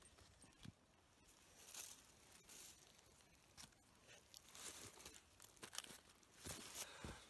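Faint, irregular crackling and rustling of dry deadwood branches and twigs being handled and laid on a shelter frame.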